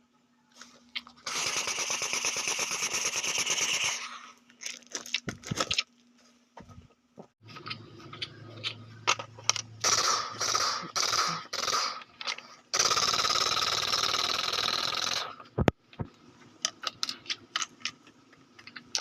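Toy guns making rapid-fire sounds: two sustained noisy bursts a few seconds long, with irregular clicking and rattling between them. After the second burst comes a run of sharp separate clicks.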